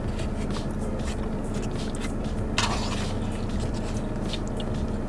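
Close-up eating sounds: chewing and small clicks of a plastic fork in a plastic takeout bowl, with one short, louder scrape of the fork against the bowl about two and a half seconds in, over a steady low hum.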